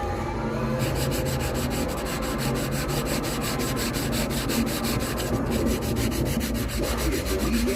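Sanding by hand: a steady, rough rubbing of abrasive across a fabricated part as it is shaped, with a fast, even pulse.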